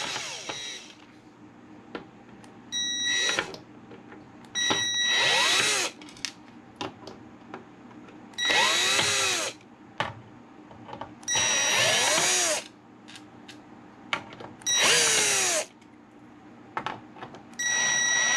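Cordless drill-driver unscrewing the screws that hold two case fans to the back of a computer case: about six short runs of a second or so each, the motor whine rising and falling as each run starts and stops, with small clicks between the runs.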